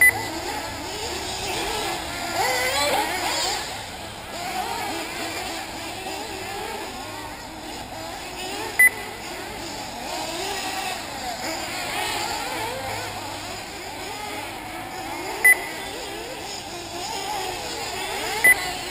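Several 1/8-scale nitro RC buggy engines racing, their high whines overlapping and rising and falling as the cars accelerate and back off. Four short, loud electronic beeps cut through, several seconds apart.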